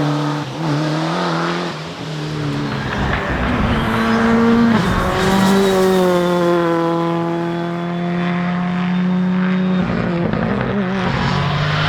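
Rally car engine revving hard through gear changes. Through the middle it holds a long, fairly steady high-revving note, with a thin high whine over it for a few seconds.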